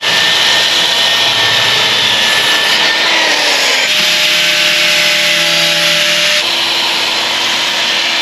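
Cordless circular saw cutting through plywood, its motor whining over the blade noise. About four seconds in, an angle grinder with a sanding disc runs against the plywood edge, then the saw cuts again near the end.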